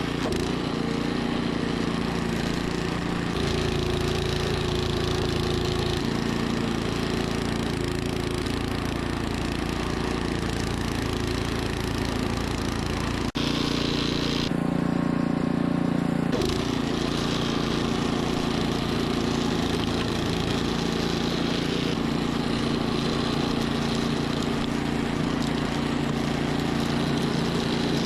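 Troy-Bilt snowblower engine running steadily under load, its sound changing abruptly a few times.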